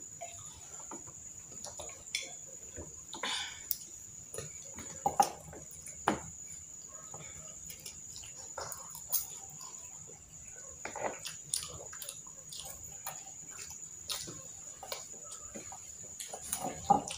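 Eating sounds at close range: several people chewing and smacking their lips on fried fish balls, with scattered short clicks and taps of forks, over a faint steady high whine.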